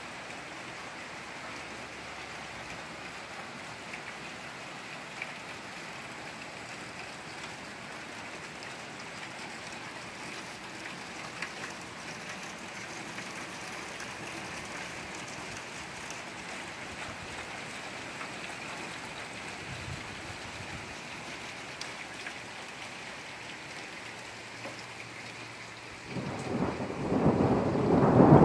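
Steady rain falling, an even hiss with a few small drop ticks. Near the end a loud peal of thunder breaks in suddenly and keeps rumbling.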